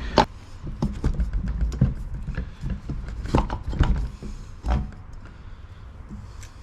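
Irregular clunks, taps and knocks of metal parts as the Honda Motocompo's two-stroke engine unit is lifted and positioned by hand. They come thickest in the first few seconds and thin out near the end.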